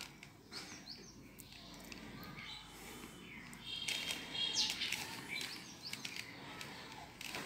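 Faint plastic clicks and rattles of a 3x3 Rubik's Cube as its layers are turned by hand.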